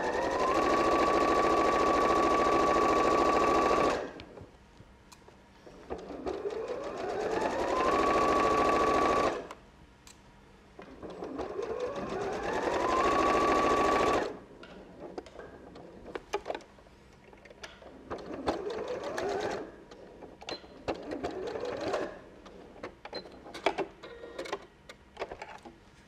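Electric sewing machine stitching fabric in three runs of a few seconds each, the motor whine rising as it speeds up and then holding steady. After these come several shorter, quieter bursts of stitching and some clicks.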